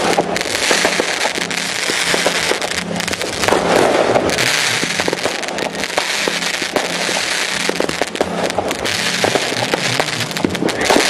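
Fireworks going off in a continuous barrage: dense crackling with many sharp pops throughout.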